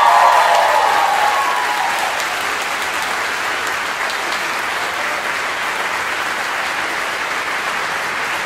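Large audience applauding at the end of a song, loudest at first and then holding steady.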